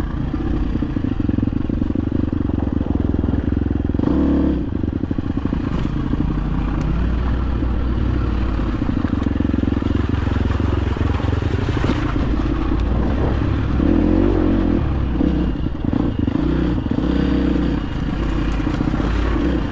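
Dirt bike engine running steadily as the bike rides down a rocky trail, with rattling and clatter from the bike over rough ground.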